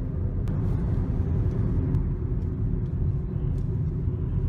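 Steady low road and engine rumble inside a Tata Tigor's cabin as it cruises on a highway, with a few faint ticks.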